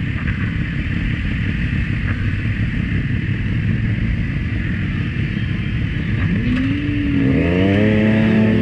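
Several sport motorcycles (a Triumph Daytona 675, a BMW S1000R and a Kawasaki Z900) idle together. From about six seconds in the engines rev and rise in pitch as the bikes accelerate away from a standstill, and the sound gets louder.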